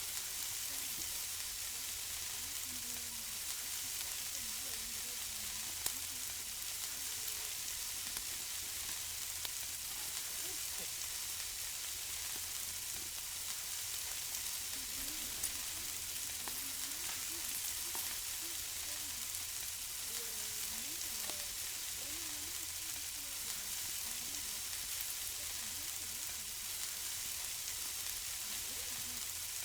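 Food sizzling on a barbecue grill: a steady hiss with scattered pops and crackles, two of them sharper, about six and fifteen seconds in.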